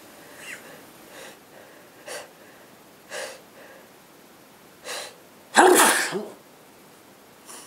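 A person sneezing: a few short, sharp breaths over several seconds, then one loud sneeze about five and a half seconds in.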